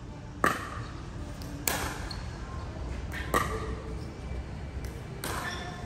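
Players hitting back and forth in a doubles rally: four sharp hits, roughly one every one and a half to two seconds, each with a short ring.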